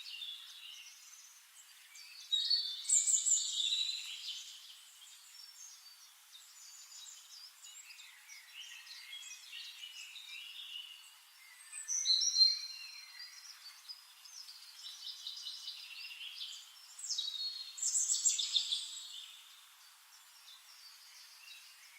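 Birds chirping and singing, with louder bursts of song a few seconds in, around the middle and near the end.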